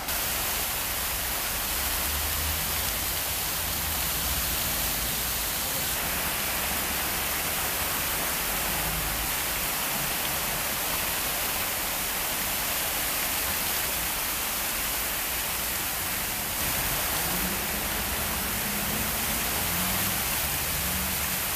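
Fountain jets spraying and splashing into the basin: a steady, even rush of water.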